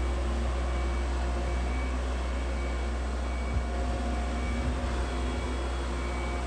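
Boatyard travel lift's engine running steadily as the lift drives with a catamaran slung beneath it: a constant low drone. A short high beep repeats every second or so over it.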